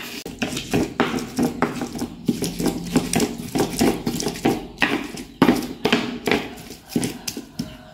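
Stone pestle crushing and grinding shallots, garlic and chillies in a stone mortar (ulekan on cobek): a fast, irregular run of knocks and scrapes, about three or four strokes a second, thinning out near the end.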